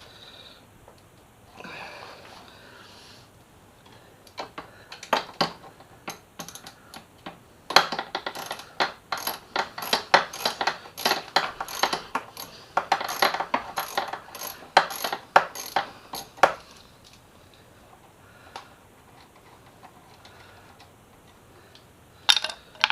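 Ratchet wrench clicking in quick runs as it is worked back and forth on a mirror-mount bolt, the clicks thickest through the middle. A brief metallic clink near the end.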